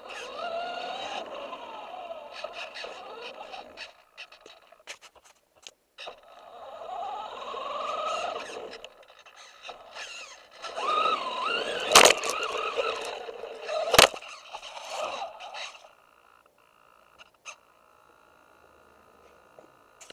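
Radio-controlled monster truck being driven over rough ground, heard from the car itself. Its motor and gears whine, rising and falling with the throttle in three spells, over the scrape of the tyres. Two sharp knocks about twelve and fourteen seconds in are the loudest sounds.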